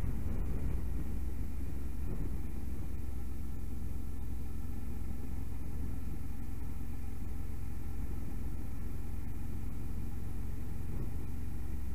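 Motorcycle riding along at a steady cruising speed: engine and wind noise heard from on the bike as an even, steady low rumble.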